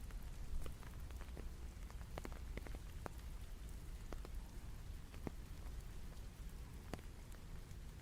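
Rain falling, with scattered separate drops ticking sharply onto a surface over a steady low rumble.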